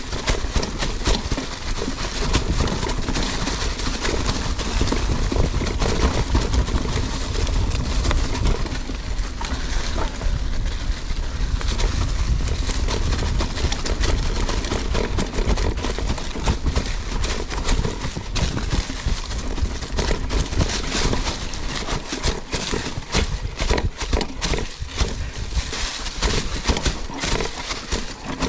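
Mountain bike rattling over rocks and roots on a trail ride: a continuous clatter of chain and frame with many sharp knocks, over a steady low rumble.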